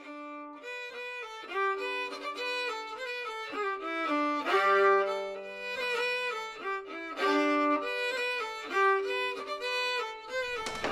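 Background instrumental music: a melody of held notes over a low held note in the middle.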